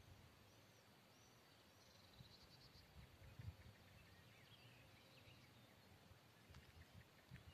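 Near silence: faint songbird chirps and a short trill about two seconds in, with a few soft low rumbles.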